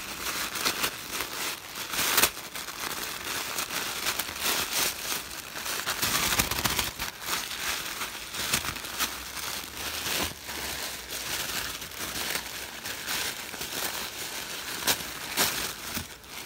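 Tissue paper crinkling and rustling steadily as a hand digs through it and pulls it apart, with several sharper, louder crinkles along the way.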